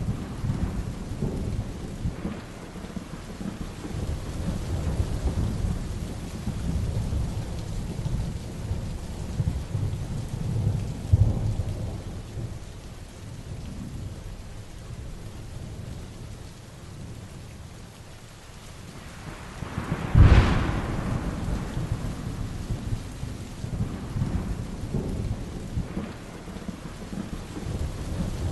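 Heavy rain falling steadily with low, rolling thunder rumbling throughout. A sharp, loud thunderclap about twenty seconds in is the loudest moment, trailing off into rumble.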